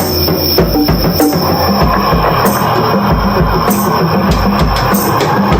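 Drum kit solo: a steady run of low drum hits with a repeating pitched pattern.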